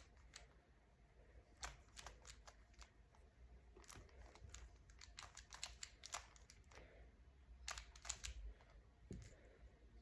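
Faint, irregular clicking of a plastic Rubik's cube as its layers are turned, in short bursts of a few quick turns with pauses between.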